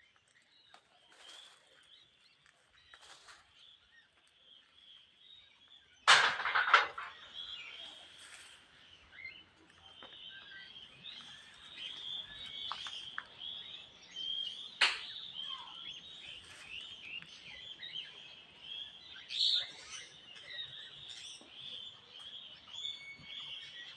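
Birds chirping and calling over a steady high-pitched background chorus. A loud sudden sound comes about six seconds in, and a sharp call about fifteen seconds in; after the first, the whole scene is louder.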